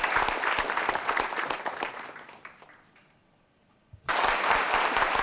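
An audience applauding: many hands clapping together, dying away over the first three seconds. A second round of applause starts abruptly about four seconds in.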